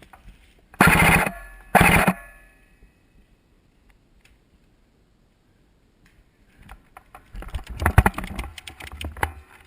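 Airsoft SCAR-L rifle firing two short full-auto bursts, about a second in and again a second later, each with a fast rattle of shots and a brief metallic ring. From about seven seconds an irregular run of knocks and rustling follows.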